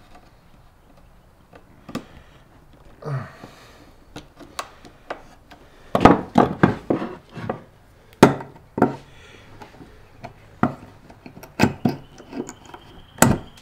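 Clicks, taps and scraping of steel hand tools working staples out of a pine board: a utility knife blade prying under a staple, tools knocking on the wooden bench, and Knipex end-cutting pliers gripping a staple near the end.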